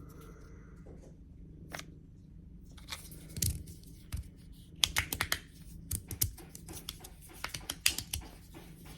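Small hard plastic pieces being handled, giving a run of irregular sharp clicks and light rustling that begins about three seconds in and grows busier towards the end.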